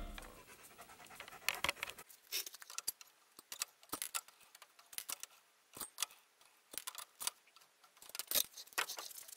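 Faint, scattered metallic clicks and clinks of hand tools being handled, a few per second at irregular intervals.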